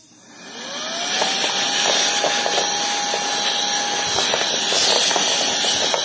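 Suitu ST-6645 cordless handheld vacuum cleaner switched on at its first speed in blow mode: the motor spins up with a rising whine that levels off after about a second, over a steady rush of air from the narrow nozzle.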